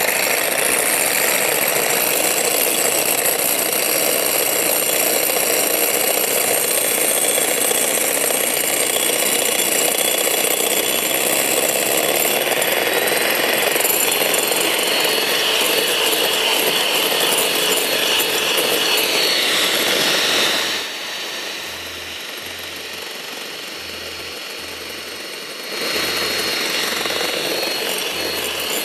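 Electric mixer running steadily, whipping egg whites. About 21 seconds in it drops quieter for about five seconds, then picks up again.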